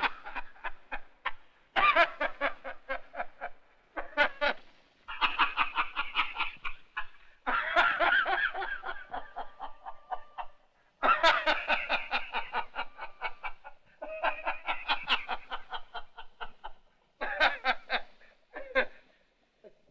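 A man laughing hard in repeated long fits of rapid 'ha-ha-ha' pulses, broken by short pauses, on an early sound-film soundtrack.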